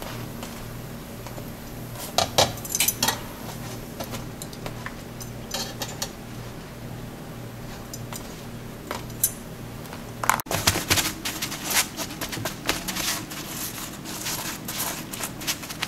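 Metal kitchen tongs clicking against a wire rack as naan is turned over a stove burner, with a steady low hum underneath. After a sudden cut about two-thirds of the way in, a quick run of small taps and rustles follows as the naan is handled in a paper-towel-lined basket.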